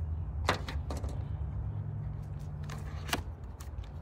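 A handful of sharp clicks and taps from handling a folding knife and a cardboard knife box on a glass tabletop, over a steady low background rumble.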